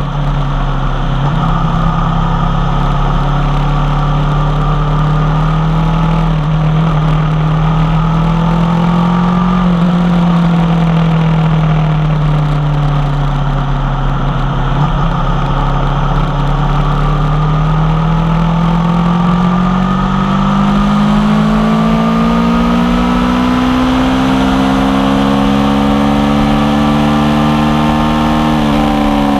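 2016 Aprilia Tuono V4 1100 Factory's V4 engine running through an unbaffled Tech 1 carbon exhaust while riding, its pitch rising and falling with the throttle. It rises, eases off, then climbs steadily through the second half, with a short dip in pitch near the end.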